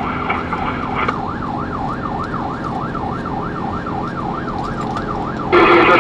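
Fire engine's siren heard from inside the cab, a wavering wail sweeping up and down about three times a second, starting about a second in. A brief loud blast cuts over it near the end.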